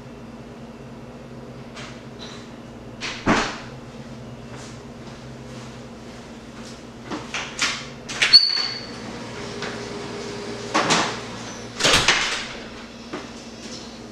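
A room door being opened and shut, with several knocks and thuds, the loudest about three seconds in and about twelve seconds in, and a short high squeak about eight seconds in. A steady low electrical hum runs underneath.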